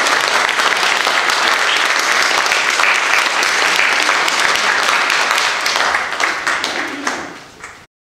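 Congregation applauding: a dense, steady clatter of many hands clapping that dies away over the last couple of seconds and cuts off just before the end.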